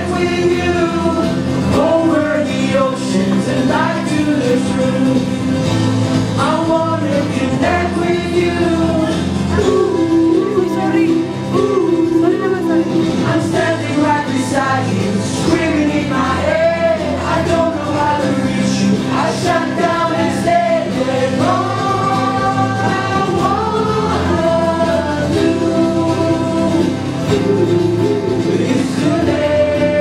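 Acoustic guitar strummed with male voices singing a song into microphones.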